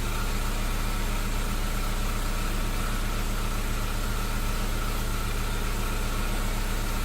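1991 Honda Civic's four-cylinder engine idling steadily during a combustion-leak (block) test of the cooling system; the engine has a blown head gasket. A thin steady high tone runs over the low, even idle hum.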